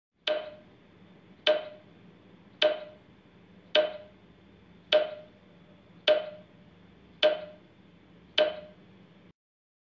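Countdown timer sound effect: eight sharp ticks about a second apart over a faint low hum, which cuts off near the end.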